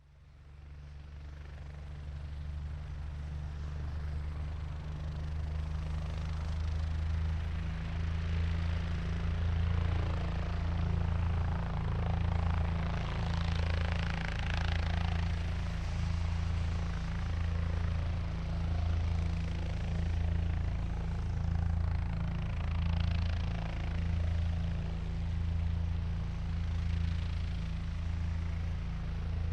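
Helicopter starting up: the engine and rotor sound builds over the first several seconds, then settles into a steady low rotor thrum that swells and fades in a slow, regular pulse.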